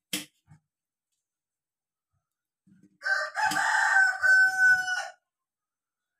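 A rooster crowing once, a loud call of about two seconds starting about three seconds in, after a brief click at the start.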